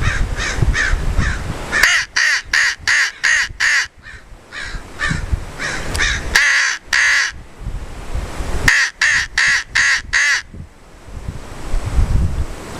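Lohman crow call blown in strings of short, rapid caws imitating an American crow: two runs of about half a dozen quick caws, with one longer drawn-out caw between them.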